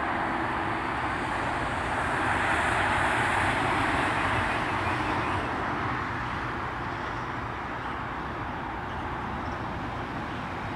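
Steady rushing noise of a passing vehicle, swelling about two seconds in and easing off after about five seconds.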